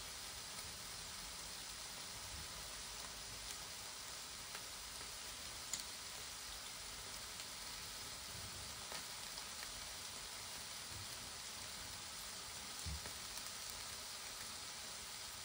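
Lamb chops sizzling steadily inside a closed Tefal Optigrill Elite contact grill, with a few faint scattered crackles.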